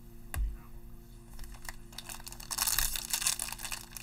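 Foil wrapper of a 2020 Mosaic football card pack crinkling and tearing as it is handled and opened by hand, starting about two and a half seconds in. A single light knock near the start, as a stack of cards is set on the table.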